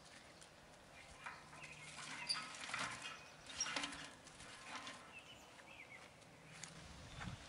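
Dry sticks and twigs clattering and scraping as they are laid by hand onto the metal grate of a stove built from steel wheel rims. The irregular knocks and rustles come thickest in the middle.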